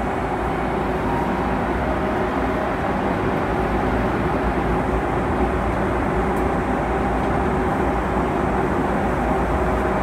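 Steady cabin noise of a Boeing 737-800 airliner in cruise: an even rush of airflow and engine drone with a few faint steady hums in it.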